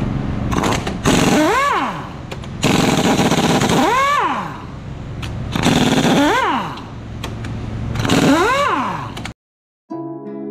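Ingersoll Rand pneumatic impact wrench hammering in four bursts while loosening rusted tensioner bolts on a corn header. In each burst the air motor's whine rises and falls as it spins up and down.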